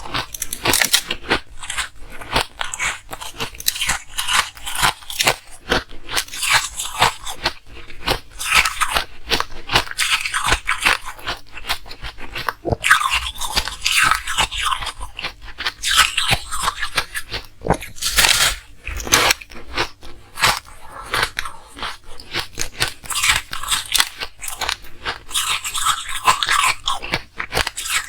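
Ice being bitten and chewed close to the microphone: a steady run of loud, sharp crunches and crackles, one after another with hardly a pause.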